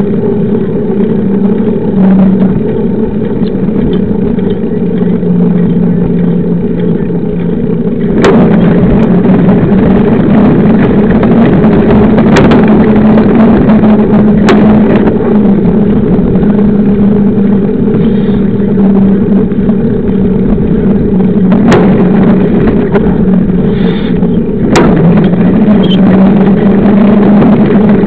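Knobby 29-inch mountain bike tyre humming steadily as it rolls on asphalt, under loud wind rush on a bike-mounted camera microphone. It gets louder about a third of the way in, and a few sharp knocks come as the bike jolts over bumps.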